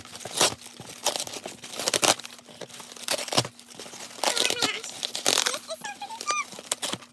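Crinkly packing paper and filler being rummaged and crumpled by hand while unpacking a box, in a rapid, irregular run of rustles and crackles.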